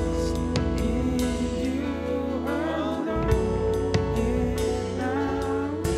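Live worship band playing slow music, with held keyboard chords, bass and electric guitar, and a man singing.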